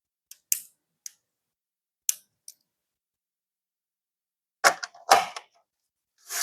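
Unboxing handling sounds: a few light clicks and taps of plastic and card packaging, then two louder knocks of items set down on a table, and a rustle of packaging beginning at the very end.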